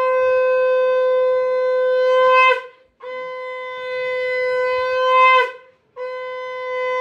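Conch shell (shankha) blown in long, steady blasts, three in a row with short breaths between. Each blast breaks off with a brief wobble in pitch.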